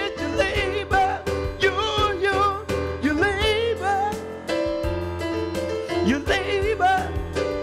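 A man singing a gospel song with melismatic, wavering runs over his own electric keyboard accompaniment, with sustained chords and a steady low bass underneath.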